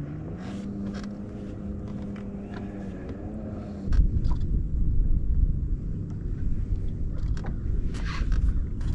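Boat's electric trolling motor humming at a steady pitch. About four seconds in, a louder low rumble takes over, with a few faint clicks.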